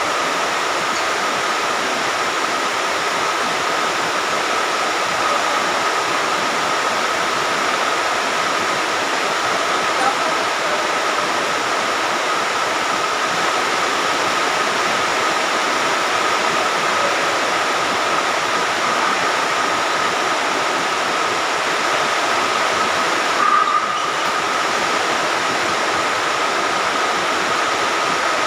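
Steady rain falling, an even hiss with a faint high steady tone running through it.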